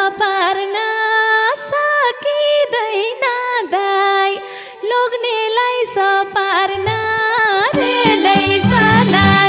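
Nepali dohori folk music between sung verses: a single melodic lead line of held notes with smooth pitch bends. About seven seconds in, a low rhythmic accompaniment comes in and grows fuller near the end.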